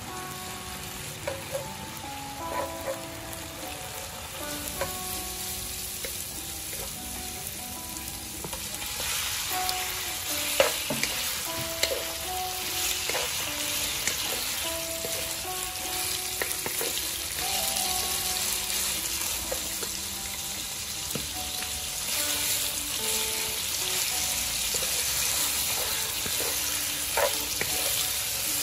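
Stir-frying in a wok: oil and fish sauce sizzle around aromatics while a wooden spatula scrapes and taps the pan. About nine seconds in, the sizzle grows louder as the raw chicken organs go into the hot wok and are tossed.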